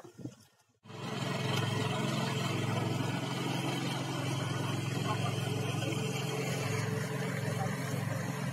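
Small outrigger fishing boat's engine running steadily, coming in abruptly about a second in.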